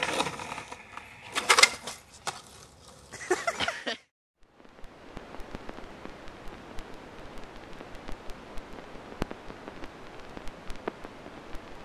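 Skateboard wheels rolling and scraping on concrete, with sharp board clacks about a second and a half in and again near three seconds. After a sudden cut to silence, a faint steady hiss dotted with scattered clicks and crackles.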